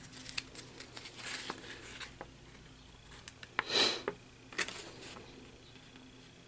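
A folded paper instruction leaflet being handled and unfolded: scattered light rustles and taps, with a louder paper rustle a little after halfway.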